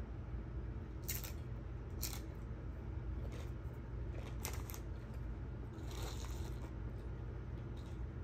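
Close-up eating of crunchy food: several sharp, crisp crunches about a second apart, then a longer crackly stretch near the end. A steady low hum runs underneath.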